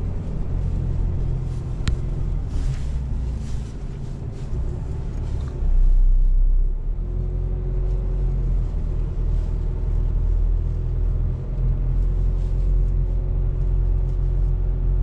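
Steady low rumble of a four-wheel-drive's engine and tyres heard from inside the cabin as it drives a sandy track. A single sharp knock comes about two seconds in, and the rumble swells louder for about a second around six seconds in.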